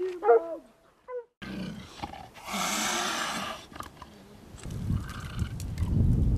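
A hound's short bay, then after a brief pause a mountain lion hissing and then growling low, the growl getting louder toward the end.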